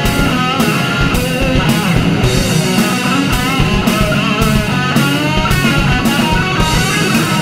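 Rock band playing: guitar over drums, with a steady beat of about two cymbal strikes a second and bending melodic lines above.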